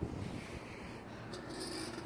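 Wind rumbling on a phone microphone, with a brief soft rubbing rustle about a second and a half in.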